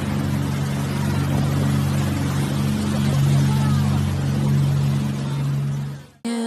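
Motorboat engine running steadily at speed, with the rush of wake water and wind, and a brief excited voice in the middle. It cuts off abruptly about six seconds in.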